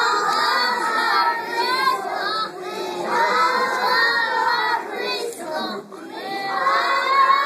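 A group of children singing together, in held phrases of about two seconds with short breaks between them.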